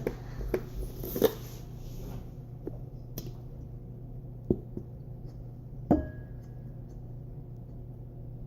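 Scattered clicks and knocks of small objects being handled on a table, the sharpest about a second in. Another near six seconds rings briefly. A steady low hum runs underneath.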